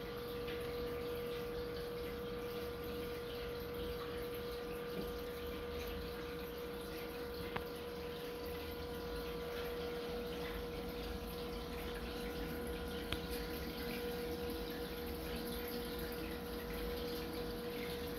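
Reef aquarium's water pumps running, with water circulating and a steady hum. Two faint clicks come in the middle.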